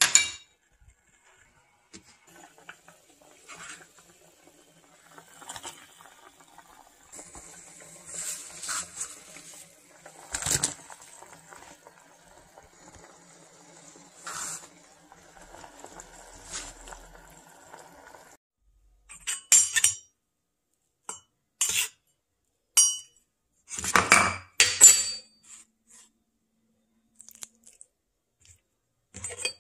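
Kitchen handling sounds: a metal spoon clinks once against a stainless steel saucepan at the start, followed by quiet handling noises. In the last third comes a run of sharp clinks and taps of metal utensils against dishes.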